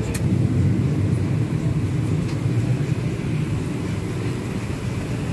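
Steady low hum and rumble of a parked Boeing 737-800 airliner, with one sharp click just after the start.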